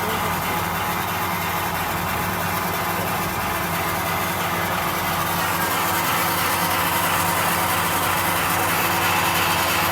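DR-70 core-filling pet food extruding line running: a steady machine hum with an even whirring noise over it.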